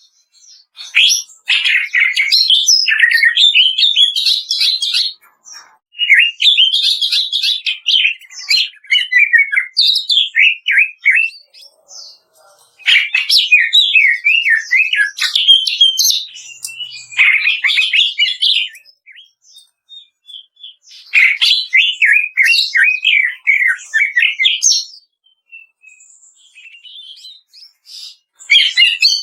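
Cucak ijo (green leafbird) singing its loud 'kretekan' song: rapid, crackling strings of high chattering notes, delivered in phrases of a few seconds with short pauses between them, about six phrases in all.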